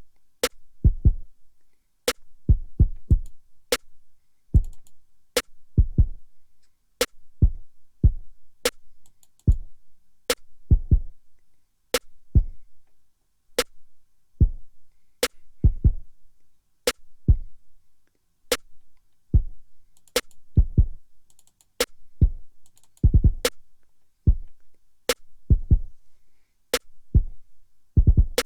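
Drum-machine beat programmed in Native Instruments Maschine looping: deep kick drums in an uneven, shifting pattern under a sharp snare crack that repeats about every second and a half.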